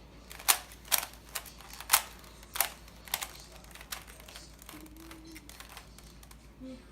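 A 3x3 Rubik's cube being turned by hand: a run of sharp plastic clicks as the layers snap round, about seven in the first four seconds and sparser after that.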